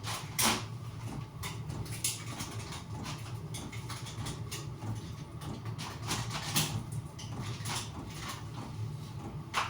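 Scattered clicks and knocks of hands handling and fitting parts, over a steady low hum.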